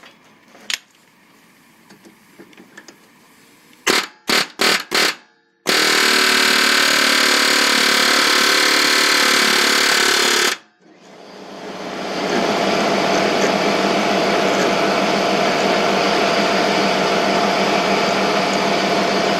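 Air hammer driving a Thexton 482 small fastener removal bit against a stuck fastener: four short bursts, then a steady run of about five seconds that cuts off. About a second later another steady mechanical noise builds up and runs on.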